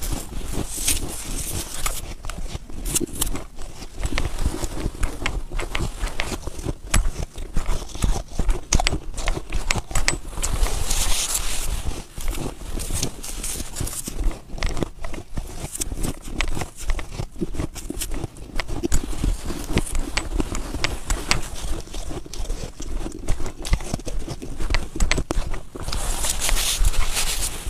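Mouthfuls of fresh, powdery snow being bitten and chewed close to the microphone: a dense, irregular crunching and crackling, with snow crushed in the hands, over a steady low rumble.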